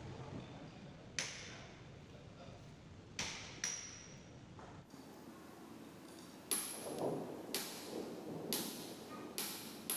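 Steel parts of a tie-rod end ball joint (ball stud, housing and wire retaining rings) clicking and clinking as they are handled and fitted, a series of sharp metallic clicks, several with a brief high ring, coming closer together in the second half.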